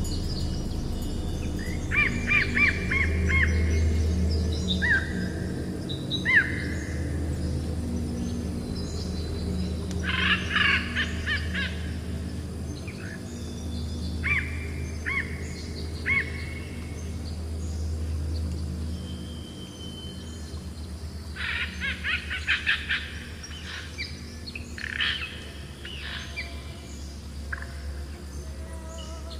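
Ambient music with a low sustained drone, layered with recorded forest birdsong: scattered chirps and short whistled calls, with bursts of rapid trilled notes about ten seconds in and again near twenty-two seconds.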